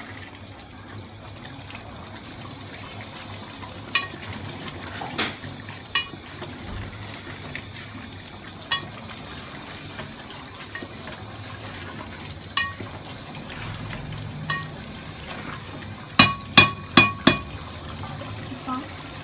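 A metal spoon clinking against an aluminium pot while chicken karahi gravy is stirred, a sharp ringing clink every second or two, with a quick run of four or five clinks near the end. Under it runs a steady hiss from the pot on the gas stove.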